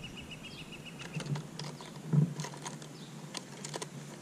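Small clicks and knocks of handling gear as a handheld fish scale is hooked onto a caught bass, with one louder knock a little after two seconds in. A rapid train of high pips, about eight a second, fades out about a second in.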